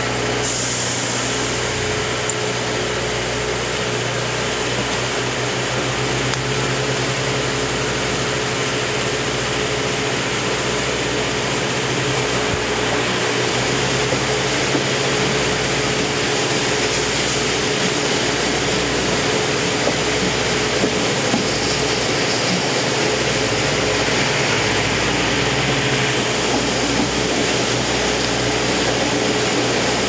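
Steady running noise inside a passenger coach of the steam-hauled SL Ginga train, heard through the closed window: an even rumble of the train rolling on the rails with a steady hum under it.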